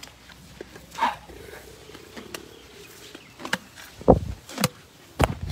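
Asian elephant right up at the microphone, making a few short noises and knocks. The loudest are two deep thumps about four and five seconds in.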